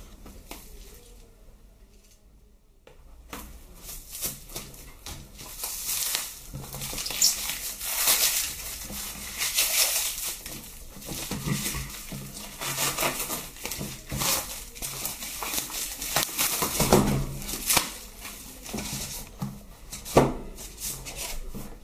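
Plastic shrink-wrap film on a cardboard box being slit with a pocket knife, then peeled and torn off, crinkling and crackling in irregular bursts. A sharp tap about twenty seconds in.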